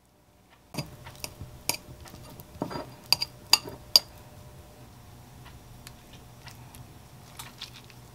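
A metal spoon scraping and clinking against a ceramic bowl as cooked rice is stirred. Several sharp clinks start about a second in, the loudest just before four seconds. After that a steady low hum remains, with a few faint clicks near the end.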